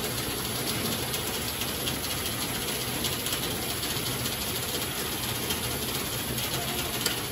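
Automatic silk-reeling machine running, a steady mechanical noise with faint rapid ticking as it unwinds silk from cocoons soaking in its water basins.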